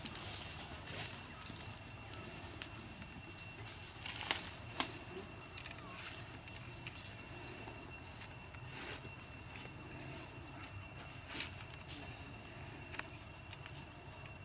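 Outdoor nature ambience: a steady high-pitched drone with short, high chirps repeating about once a second, and two sharp clicks about four and a half seconds in.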